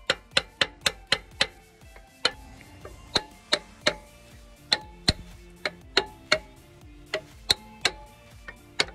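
Socket ratchet clicking as it winds back a truck air-disc brake caliper's adjuster to make room for new pads. The sharp clicks come in quick runs at first, then more spaced out.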